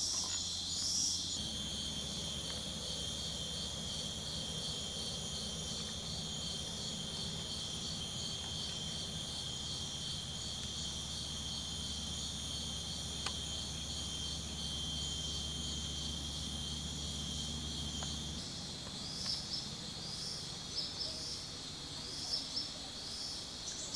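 Jungle insects, crickets, chirring in a steady high-pitched buzz with an evenly pulsing call over it. The chorus drops quieter about 18 seconds in.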